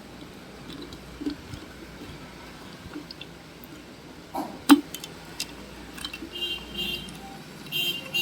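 Plastic wire connectors being pulled from a home theatre amplifier's circuit board by hand: scattered small clicks and handling noises, with one sharper click about halfway through and brief squeaks near the end.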